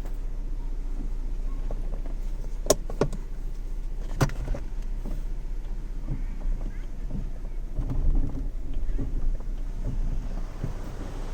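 BMW E36 engine running with a steady low drone, in a car whose owner reports a weird noise on pulling away and vibration all the time, even with the clutch pressed in. Two sharp clicks come about three and four seconds in, and the sound grows louder and rougher for a moment about eight seconds in.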